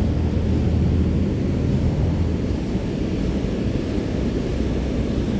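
Steady low rumble of water pouring over a low river dam.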